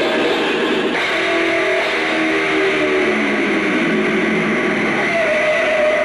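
Heavily distorted electric guitar played loud through stage amplifiers: a run of notes stepping downward in pitch, then one high note held and ringing on near the end.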